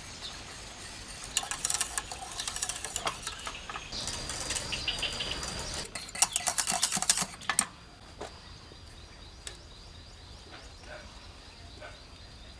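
A wire whisk clattering rapidly against the sides and bottom of a stainless steel saucepan while custard is stirred constantly as it cooks and thickens. The clattering cuts off a little past halfway, leaving only a few light taps.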